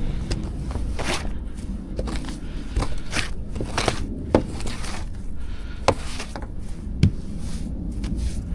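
Wet snow being cleared off a car: a series of short brushing swishes and scrapes, with a few sharp knocks, over a low steady rumble.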